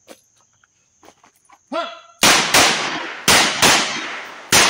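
Handgun shots fired in quick double taps: two pairs of sharp cracks about a third of a second apart, the pairs about a second apart, then the first shot of a third pair near the end. Each crack trails off in a short echo.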